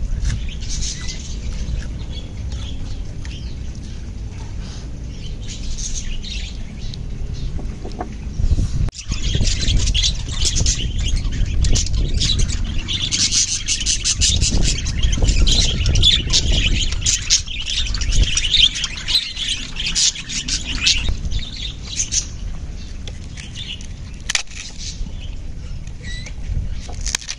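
A flock of budgerigars chattering in an aviary: many quick high chirps that grow busier about nine seconds in and thin out again near the end.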